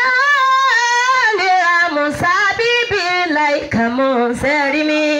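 A woman singing solo into a microphone, holding each note, her melody stepping down in pitch through the phrase.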